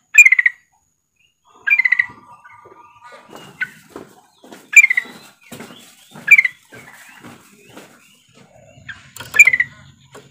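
Female yellow-vented bulbul (trucukan) calling: loud, short chirps repeated at irregular intervals of one to three seconds, about six in all, with softer chatter between them. This is the female's call to the male.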